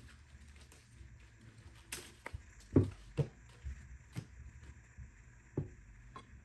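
Husks being pulled off a steamed ear of corn by hand and the cob laid on a plastic cutting board: faint rustling with several short, light knocks.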